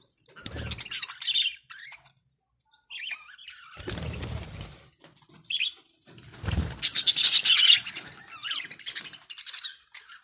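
A flock of budgerigars chirping and chattering in bursts, loudest in a rapid flurry about seven to eight seconds in, with a few low thuds underneath.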